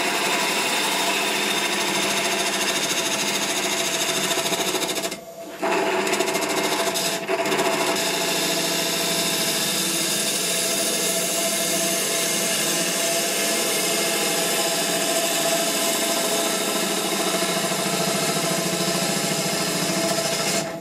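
Bowl gouge cutting inside a piece of dry ash spinning on a Record Power Coronet Herald wood lathe at 800 rpm: a steady cutting noise over the lathe motor's whine. The cut breaks off for about half a second about five seconds in, and again briefly about seven seconds in.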